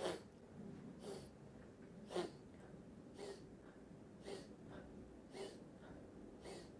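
A person taking short, sharp, noisy inhales through the nose, seven of them about one a second. This is the rhythmic sniffing of the 'pump' breathing exercise, one sniff with each forward bend.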